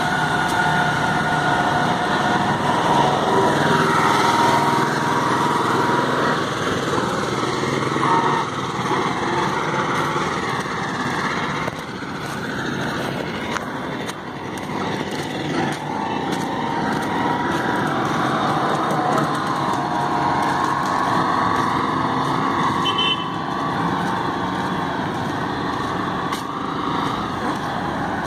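Road traffic: motor vehicles passing on the road, a steady wash of engine and road noise with engine notes rising and falling as they go by.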